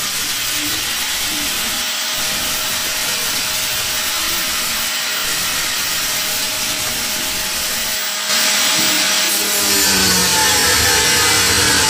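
Angle grinder with a thin cutting disc slicing through the old steel baseplate beside spot welds: a steady whine under a hissing cutting noise. About eight seconds in it gets louder and harsher.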